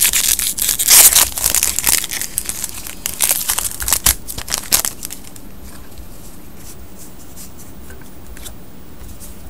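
A foil Magic: The Gathering booster pack wrapper being torn open and crinkled, lots of fast crackles and rips, stopping about five seconds in.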